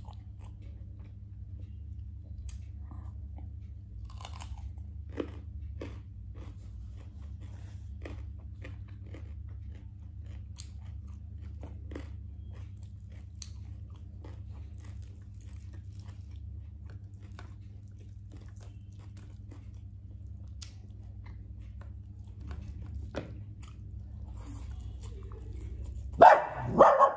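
Close-up chewing and crunching of fried chicken, with small scattered clicks of eating over a steady low hum. Near the end a dog barks loudly, twice in quick succession.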